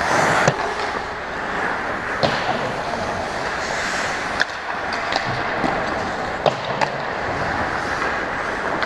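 Ice hockey play: skates scraping and carving on the ice with several sharp clacks of sticks and puck, the loudest about half a second in.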